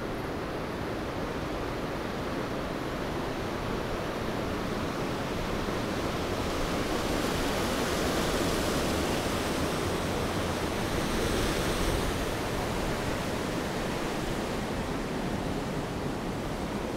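Creek water rushing over a low rocky drop in a concrete channel, a steady rush that swells louder for a few seconds in the middle, then eases.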